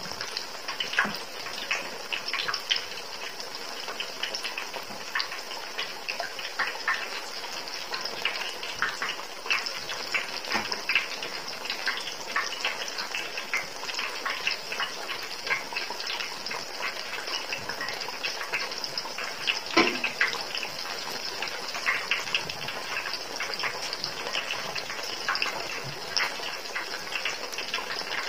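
Battered ripe nendran banana halves deep-frying in hot oil: steady sizzling with constant crackling and popping, and one louder pop about twenty seconds in.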